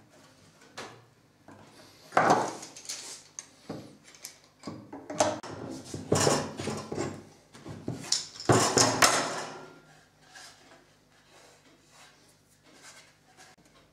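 Steel screw bar clamps being worked and taken off wooden boards: metal clamp parts clattering and wood knocking on wood, in several bursts, the loudest about two seconds in and again around six and nine seconds.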